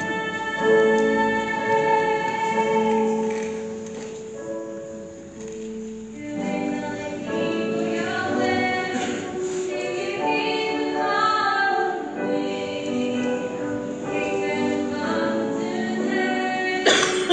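A group of voices singing a slow hymn-like song in long held notes, quieter for a moment about four to six seconds in. A short, sharp thump comes near the end.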